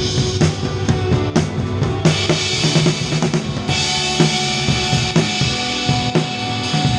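A band playing live in a sound check: a drum kit with kick and snare hits in a steady rhythm over sustained pitched instrument notes. Cymbals wash in about two seconds in and get fuller near the four-second mark.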